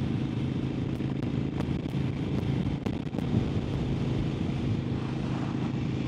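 Harley-Davidson Sportster XL1200N's air-cooled 1200 cc V-twin running steadily at cruising speed while the bike is ridden along a dual carriageway.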